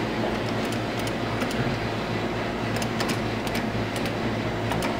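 Claw machine running during a play: a steady mechanical hum with a few faint, light clicks scattered through it.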